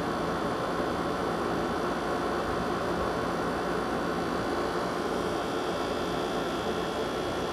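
Steady hum with an even hiss, unchanging throughout.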